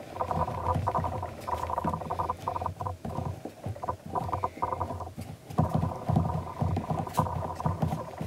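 Hands rolling a coil of air-drying clay back and forth on a tabletop: repeated rubbing strokes of palms and clay against the table, with a short pause about five seconds in.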